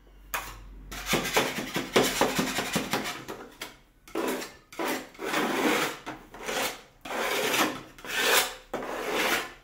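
Rough scraping against a wall surface by hand. It rasps steadily for the first few seconds, then breaks into repeated back-and-forth strokes about one a second.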